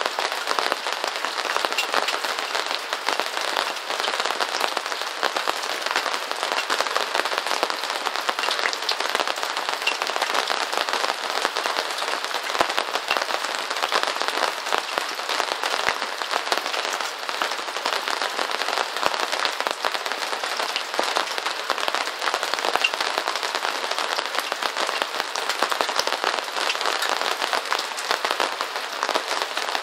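Steady rain: a dense, even crackle of countless small drop hits, with no low rumble beneath it.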